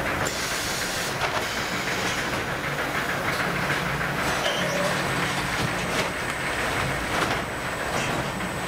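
Industrial machinery running steadily: a low hum and hiss with scattered light clicks and a faint high whine, from an automated bag-stacking line at work.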